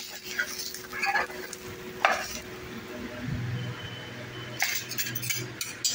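Metal spatula scraping under an uttapam on an oiled tawa while the oil sizzles; a sharper scrape about two seconds in, then a few quick scrapes and clinks near the end.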